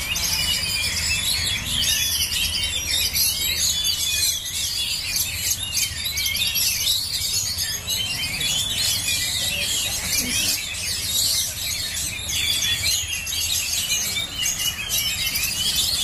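Many caged oriental magpie-robins (kacer) singing at once during a judged contest round: a dense, continuous tangle of overlapping high chirps and whistled phrases.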